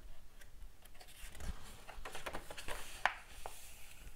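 A picture-book page being turned by hand: light taps and clicks of fingers on paper, with a soft rustle of the page about halfway through.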